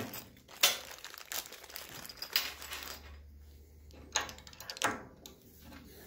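Small plastic bag of copper ring terminals crinkling as a terminal is taken out, then a few sharp clicks as the terminal is fitted into the spring-loaded jaw of a hammer lug crimper.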